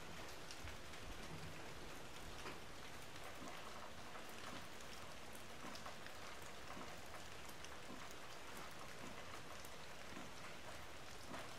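Steady rain falling, an even hiss dotted with many separate drops ticking.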